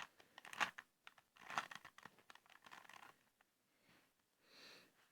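Plastic Rubik's Cube being twisted by hand: short bursts of quick clicking and rattling as its layers turn, in three clusters over the first three seconds.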